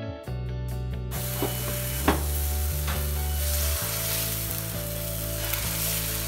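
Dosa batter sizzling on a hot thava as a ladle spreads it outward in circles, with a sharp tap of the ladle about two seconds in. Soft background music with held chords plays underneath.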